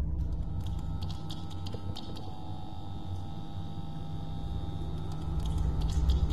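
Low steady hum with thin, steady higher tones above it and scattered faint clicks; the hum swells again near the end.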